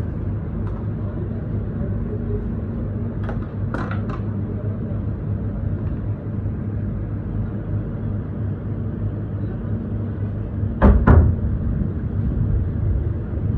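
Steady low machine hum, with a few light clicks about four seconds in and two sharp knocks close together about eleven seconds in, from a knife and a steel food container being handled.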